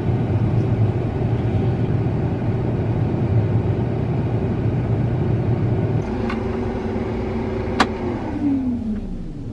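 An engine runs steadily, then is shut off after a click and a sharp knock. Its pitch falls as it winds down and fades near the end.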